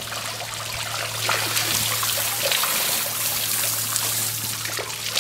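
Hose spray nozzle spraying water onto a fish-cleaning board and striped bass fillets, a steady hiss with splashing, to rinse the blood off the meat.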